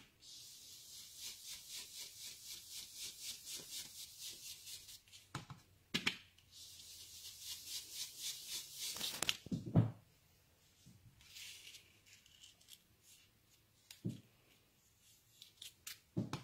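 An ink blending brush rubbed in quick circles over cardstock, giving a rhythmic scratchy swish of about three strokes a second. It comes in two spells with a few soft knocks between them, then only occasional light knocks in the last third.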